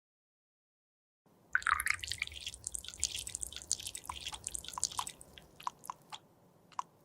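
Wet dripping and clicking of a liquid, dense for a few seconds after starting about a second and a half in, then thinning to a few single drops near the end.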